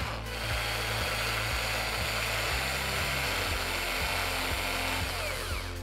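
Electric drill running steadily as a small bit bores into the iPhone 7's aluminium edge, a continuous high whine that stops right at the end. Background music with a steady beat runs underneath.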